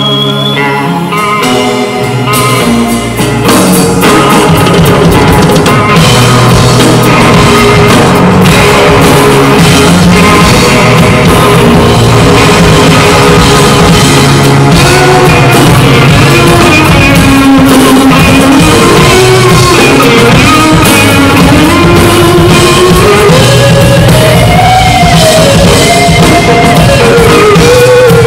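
Live rock band, loud: guitar and bass open sparsely, then a full drum kit comes in about three and a half seconds in. In the second half a lead line slides up and down in pitch over the band.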